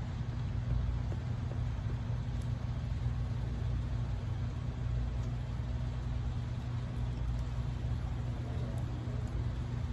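Steady low machine hum running without a break, with a few faint clicks over it.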